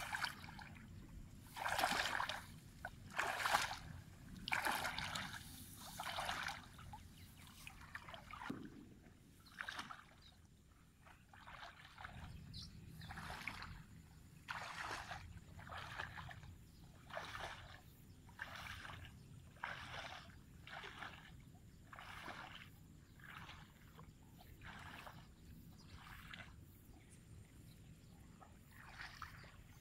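Footsteps wading through shallow water in a flooded rice paddy: a rhythmic slosh and swish of water and rice stalks at a walking pace of roughly a step a second, louder over the first several seconds.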